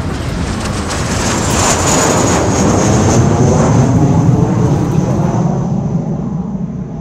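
Jet airliner engine noise, a loud rushing that swells to a peak midway and then dies away.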